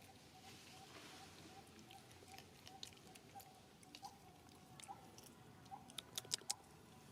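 Faint, quiet ambience with a soft chirp repeating about twice a second. Scattered small clicks build to a quick cluster of four sharp clicks about six seconds in.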